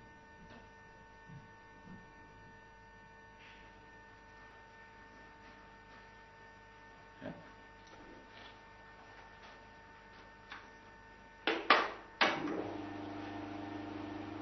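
A faint steady electrical hum with a few light knocks, then two loud knocks near the end, after which the bench buffing machine's electric motor runs with a steady hum.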